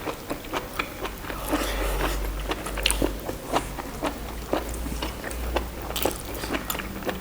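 Close-up chewing and biting of boiled buffalo innards, a run of irregular wet clicks and crunches, over a low steady hum.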